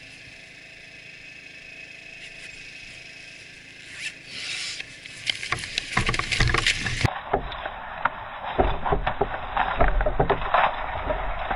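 Faint steady hum, then from about four seconds in loud, irregular knocking, scraping and low rumbling on a small camera's microphone, the kind of handling and wind noise a camera makes while a scooter rides off.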